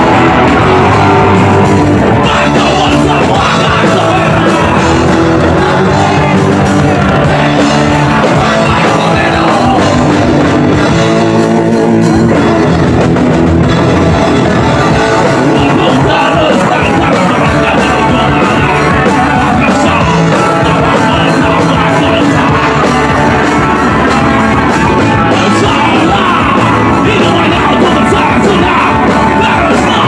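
Live punk rock band playing loud, with shouted vocals, heard from within the crowd.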